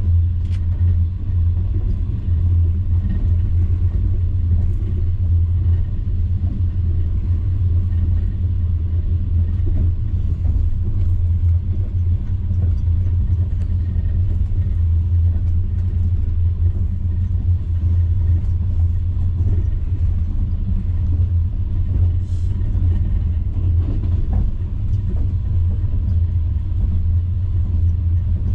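Steady low rumble of a moving vehicle, heard from inside, with a few faint clicks.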